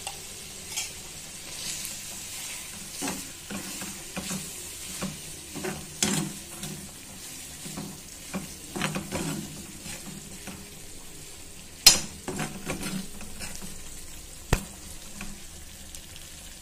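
A thick mutton fry sizzling in a black iron kadai as it is stirred and scraped with a spatula, in irregular strokes. Two sharp knocks of the utensil against the pan, the louder one about twelve seconds in.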